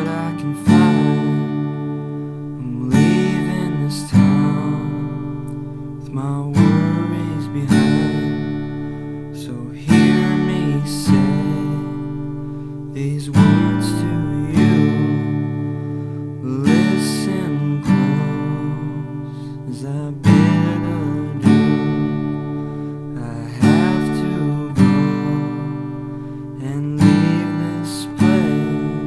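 Background music led by strummed acoustic guitar, with chords struck in a steady repeating pattern, a pair of strums every few seconds.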